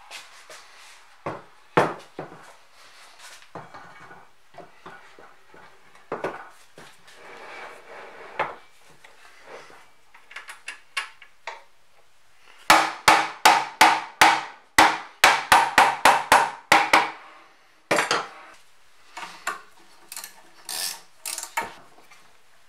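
Metal parts and tools clanking as the steel sliding table of a Kity 652 mortiser is taken apart, then a run of about fifteen quick, ringing hammer strikes, three or four a second, a little past halfway. A single loud knock follows, then lighter clinks near the end.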